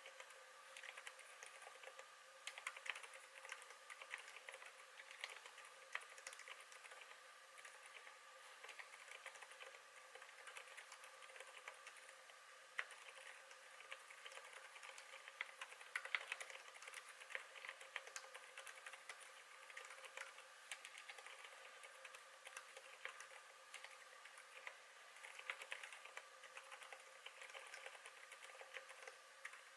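Continuous typing on a KBD8x MKII mechanical keyboard with lubed Zilent silent tactile switches: a quick, irregular run of soft, muted keystrokes, very quiet, over a faint steady hum.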